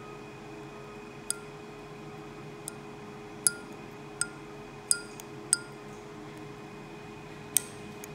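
Steel dental explorer probing a dark decay cavity in a 3D-printed model molar, its tip ticking against the hard printed tooth: about seven sharp little clicks at irregular intervals, the loudest around the middle and near the end.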